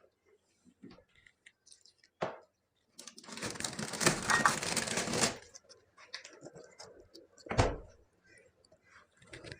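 Crinkly plastic food packaging rustling and being handled for about two seconds, among light clicks and taps, with a sharp knock before it and a single low thump near the end.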